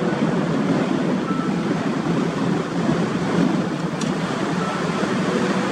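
A car driving along a tarmac road: steady tyre and wind noise, with a short click about four seconds in.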